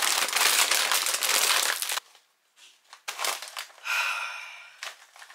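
Foil-lined potato chip bag crinkling loudly for about two seconds as it is pulled open, stopping suddenly, followed by softer, patchy crinkling as the open bag is handled.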